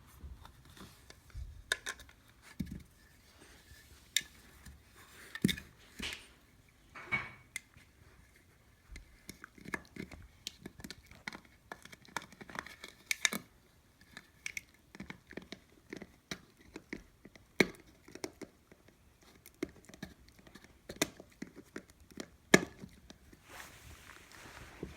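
Small dogs playing with a noise-making toy: irregular crinkling, clicks and crackles, coming in quick clusters.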